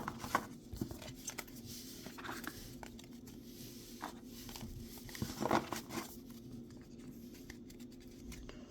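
Trading cards and pack wrappers being handled: scattered rustling and soft crinkling, louder at the start and again about five and a half seconds in, over a faint steady hum.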